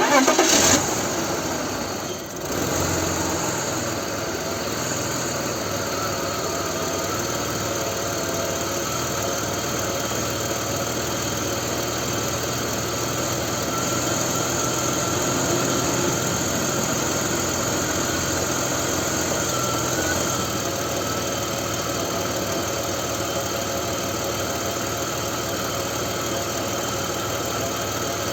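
BMW E46 325ci's M54 2.5-litre inline-six starting with a loud first second, then running steadily at idle, with Liqui Moly hydraulic lifter additive in its oil to cure a lifter tick.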